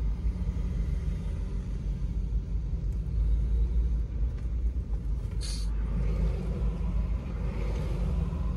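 Steady low rumble of a car, heard from inside the cabin while riding. A brief hiss about five and a half seconds in.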